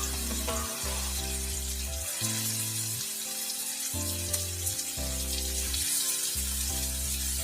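Chicken pieces sizzling as they fry in melted butter in a pan, an even hiss, under background music with held notes and a steady bass.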